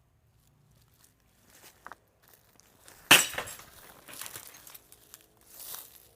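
Footsteps crunching and rustling through dry leaves and brush, with one sharp, loud crack about three seconds in.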